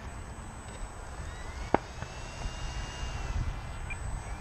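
Electric motor and propeller of an E-flite P-51D Mustang RC plane whining as the throttle opens for its takeoff roll, the pitch rising and then easing off slightly. A single sharp click comes about two seconds in.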